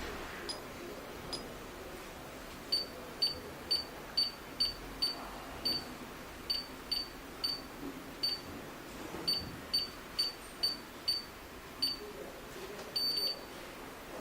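Touch keypad of a G2C alarm control panel beeping at each key press: about twenty short, high beeps at an uneven pace, ending in a slightly longer beep.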